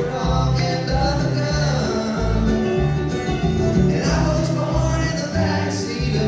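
Live bluegrass string band playing, with fiddle, acoustic guitar and upright bass driving a steady pulsing bass line, heard through the hall's PA from the audience.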